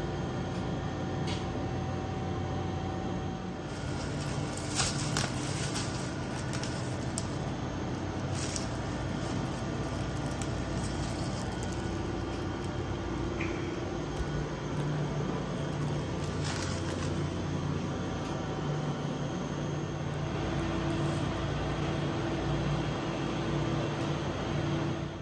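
Steady hum of refrigerated vending machines running, with a thin plastic carrier bag rustling and crackling as it is handled, most busily about four to nine seconds in and again briefly around sixteen seconds.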